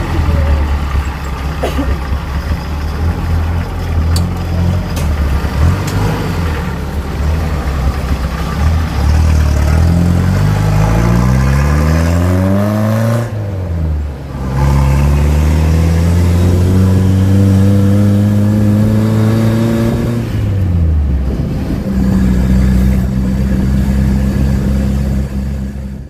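Old open-top jeep's engine pulling away and accelerating through the gears: its pitch climbs, drops at a gear change about halfway through, climbs again, drops at a second shift about three-quarters through, then holds steady.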